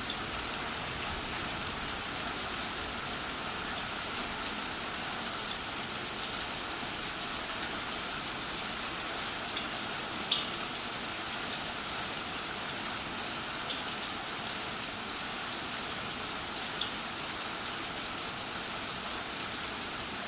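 Steady rain falling, with a few louder drops striking close by, the loudest about halfway through.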